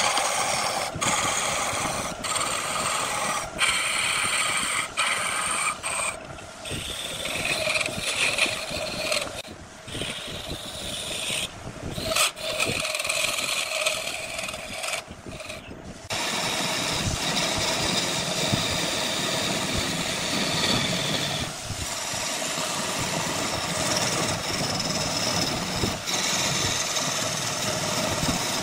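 Wood lathe running while a turning tool cuts into the spinning wood, a steady whirring hum with a scraping cut. It breaks off and restarts abruptly several times in the first half, then runs steadily from about halfway on.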